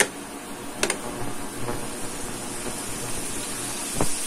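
Ground pork, bell peppers and onion sizzling steadily in a nonstick pan, with a few sharp knocks of a wooden spatula against the pan as it is stirred, near the start, about a second in and near the end.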